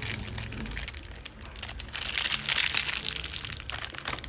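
Thin clear plastic parts bag crinkling as it is handled and crumpled, loudest in the second half.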